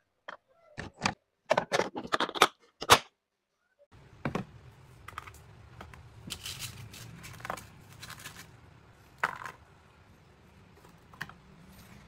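Toy clay and plastic food pieces clicking and tapping against a plastic lunch box as a gloved hand handles them. A quick run of sharp taps comes in the first few seconds, then softer scattered taps and scrapes over a faint steady hum.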